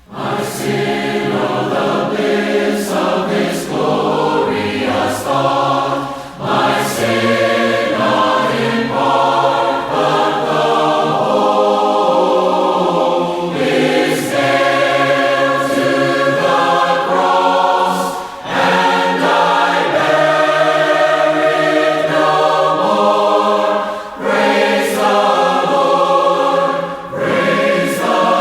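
A choir of mixed voices singing a hymn in four-part harmony a cappella, in phrases with short breaths between them.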